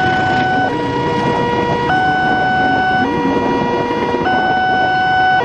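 Wantech-type railway level-crossing alarm sounding a two-tone electronic warning that switches between a higher and a lower tone about every 1.2 seconds. Underneath it, the coaches of a passing train rumble by.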